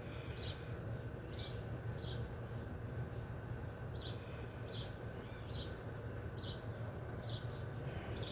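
A small bird calling repeatedly: short, high, falling chirps about one a second, with a pause of about two seconds in the middle, over a steady low hum.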